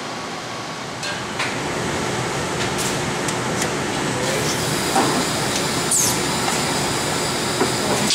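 Automated robotic brazing machine running: a steady hiss, growing a little louder about a second in, with a series of short hisses and clicks and a brief rising whine about six seconds in.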